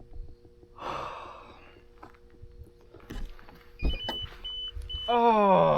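Steady electric hum of a boat's trolling motor, with a brief rush of noise about a second in and a few short, high electronic beeps near the end. A man's loud, falling groan comes in just before the end, from the disappointment of losing a big bass.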